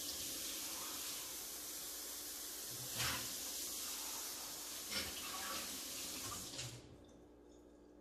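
Kitchen faucet running, water splashing over a dish being rinsed under it, with a couple of brief knocks. The tap is shut off near the end.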